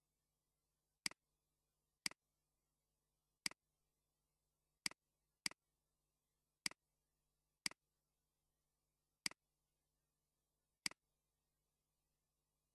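Computer mouse clicks: about nine sharp single clicks at irregular intervals, roughly a second apart and none in the last two seconds, over near silence with a faint low hum.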